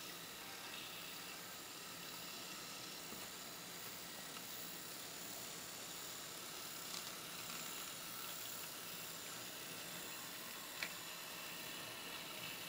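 Faint steady hiss of a model freight train running along the layout track, with a couple of light clicks in the second half.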